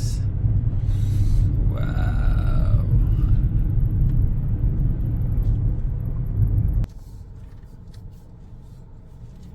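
Car cabin rumble from engine and road noise while driving, cutting off abruptly about seven seconds in.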